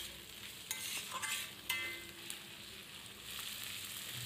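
Sliced onions and chopped tomatoes sizzling faintly in oil in a kadai while a spatula stirs them, with a few scraping strokes in the first two seconds.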